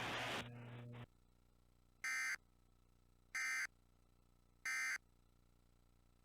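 Emergency Alert System end-of-message tones: three identical short bursts of shrill digital data warble, about a second apart. They are the SAME 'NNNN' code that closes the warning broadcast. Before them, a brief tail of broadcast audio cuts off about a second in.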